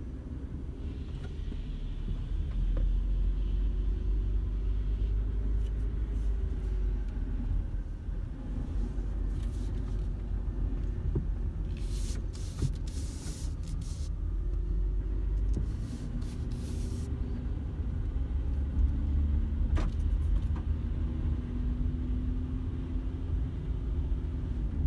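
Car driving slowly, heard from inside the cabin: a steady low road rumble under an engine hum whose pitch drifts up and down as the car speeds up and slows.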